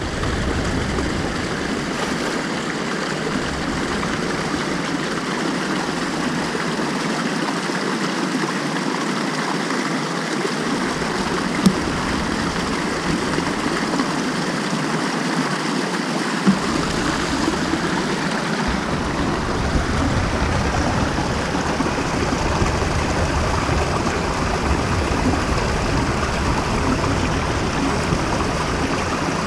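Steady rush of a stream over rocks, with two sharp knocks around the middle.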